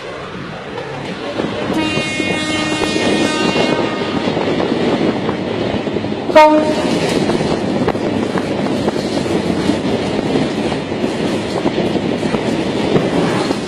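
A horn blows steadily for about two seconds, then gives one short, loud blast about six seconds in, over a continuous rumbling, clattering noise.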